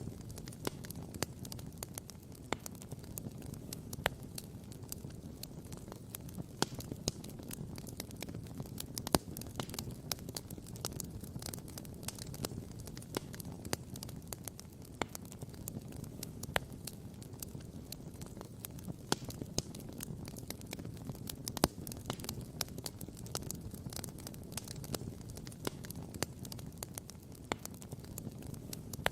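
Wood campfire crackling, with frequent irregular sharp pops over a steady low rush.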